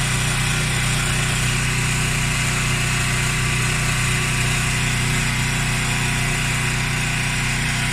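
Washing machine on its spin cycle, the drum spinning fast: a steady motor and drum hum that holds even throughout.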